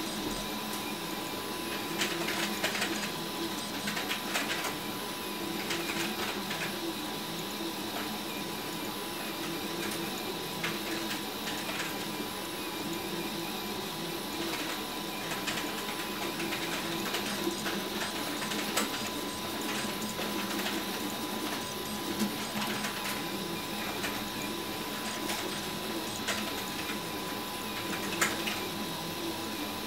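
RepRap Huxley 3D printer printing: its stepper motors run with a steady high whine and buzz, broken every few seconds by clusters of quick ticks as the print head moves.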